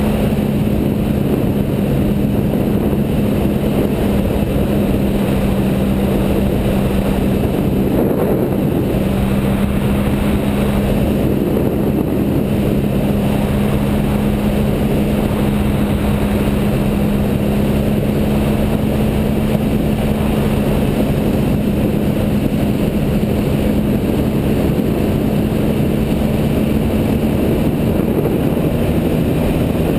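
2011 Triumph Speed Triple's 1050 cc three-cylinder engine running at a steady cruising speed, its pitch holding nearly level, under a constant rush of wind and road noise.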